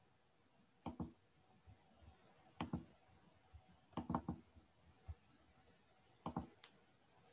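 Faint computer mouse clicks in four small groups, mostly double clicks, with near silence between them.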